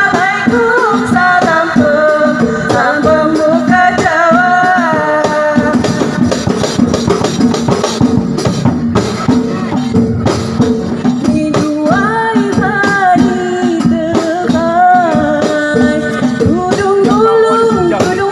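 Live traditional Lampung music: a voice sings an ornamented, gliding melody over frame drums (rebana) and jingling rattle-like percussion.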